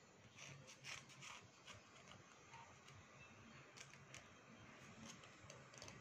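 A small blade scraping a slate pencil in short, faint, irregular strokes, each a dry little scratch.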